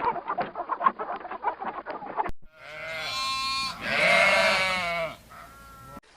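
A flock of birds calling rapidly, cut off about two seconds in. Then a goat bleats: two long bleats, the second louder, and a short one near the end.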